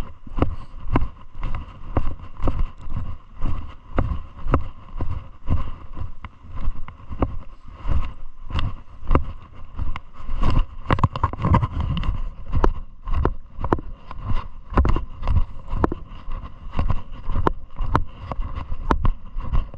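Footsteps on a loose gravel and scree mountain trail at a steady walking pace of about two steps a second.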